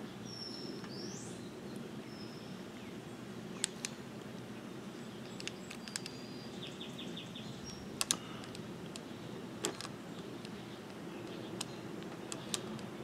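Irwin Vise-Grip wire stripper/crimper clicking as it is worked on a wire and terminal: about ten separate sharp clicks, two in quick succession about eight seconds in. Steady background hum throughout, and a bird chirps a few times near the start.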